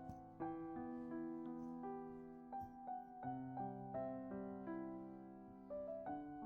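Soft background piano music: gentle notes played over held chords, each note fading after it is struck.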